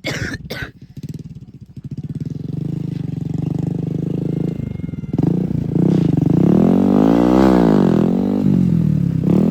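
A few sharp clicks, then a motorcycle engine running, steady at first and then revved up and back down in the second half.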